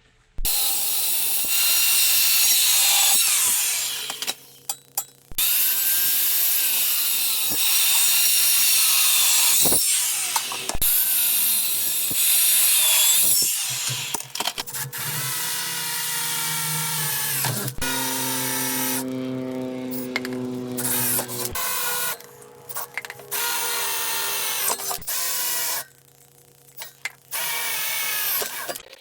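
Power saw with an adjustable depth of cut cutting through steel: the motor whines under load while the blade screeches through the metal. It stops and starts again several times between cuts.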